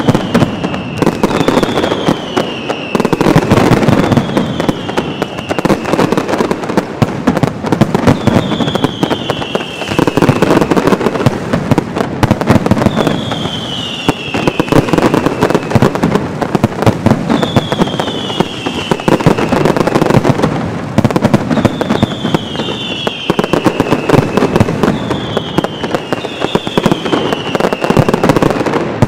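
Mascletà: strings of firecrackers going off in a dense, continuous rapid-fire barrage of bangs, with a short falling whistle cutting through every few seconds.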